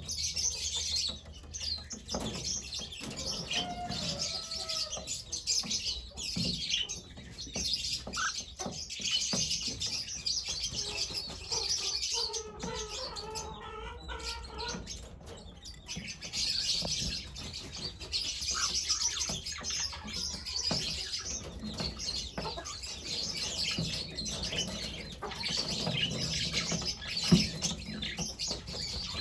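Cockatiel chirping in dense, rapid high chatter, with a lower wavering call for a few seconds about twelve seconds in, short clicks scattered through, and one sharp knock near the end.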